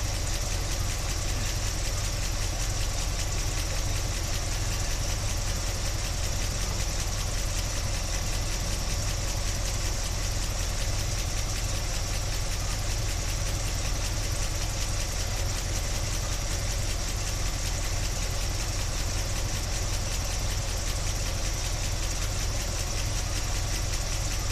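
1976 Chevy Blazer's engine idling steadily, heard close up from inside the engine bay.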